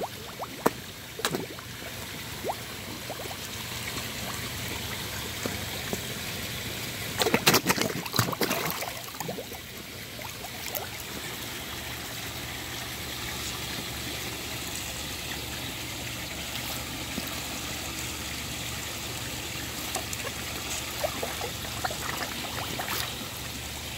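Koi splashing and slurping at the water surface as they feed from a hand, over a steady trickle of running water. A burst of splashing about seven seconds in is the loudest part.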